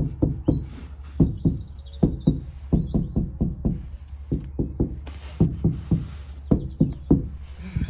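Repeated knocking on a Suzuki Carry van's steel body panel covered with sound-deadening mat. The knocks come in quick groups of two to five and sound dull and more bassy, the panel's tinny echo damped by the mat.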